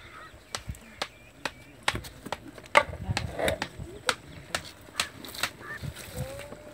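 A knife clicking and tapping against a metal platter while cutting raw whole chickens: sharp, irregular clicks, two or three a second.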